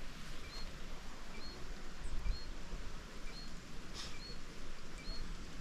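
A small creature's short, high two-note chirp, repeated steadily about once a second, over a low rumble of breeze on the microphone.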